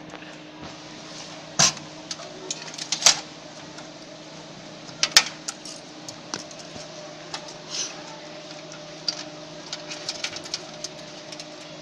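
Irregular sharp clicks and knocks of hands working inside a desktop computer case, unplugging connectors and handling metal and plastic parts, over a steady low hum.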